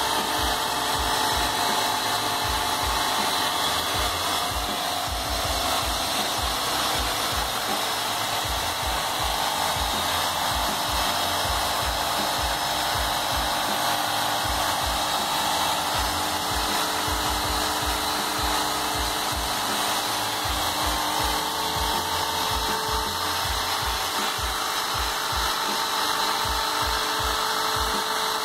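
Graco Magnum LTS 15 airless paint sprayer's electric piston pump running steadily as it pumps water through the hose and spray gun, flushing paint out of the lines.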